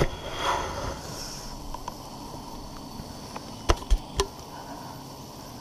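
Honeybees buzzing faintly around a bucket of freshly cut wild honeycomb, over a steady insect drone, with three sharp knocks a little past the middle from the bucket being handled.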